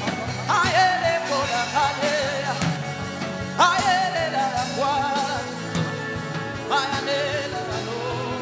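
Church worship music with a steady beat and a voice singing over it.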